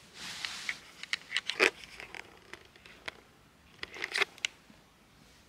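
Soft rustling with scattered small crackling clicks, as of movement in a shaggy fleece cushion. There is a brief hiss at the start, and the clicks cluster about a second and a half in and again around four seconds.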